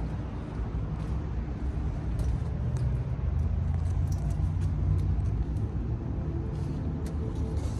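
1969 Comfortmaker three-phase central air conditioner condensing unit running: a steady low hum from the compressor and the condenser fan, which turns on a Rescue replacement fan motor.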